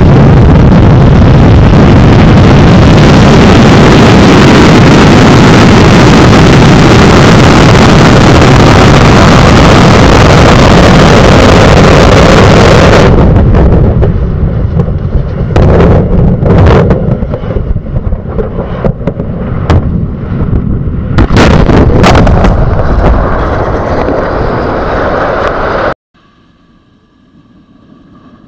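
Antares rocket's first-stage engines roaring at full thrust on liftoff, loud enough to overload the microphone. About 13 seconds in the steady roar breaks off into irregular loud bangs and crackling as the failed rocket explodes and burns over the pad. Near the end the sound cuts abruptly to a faint hum.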